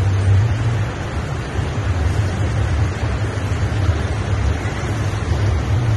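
Volcanic steam vents (fumaroles) hissing in a steady rush, with wind buffeting the microphone in a low, uneven rumble.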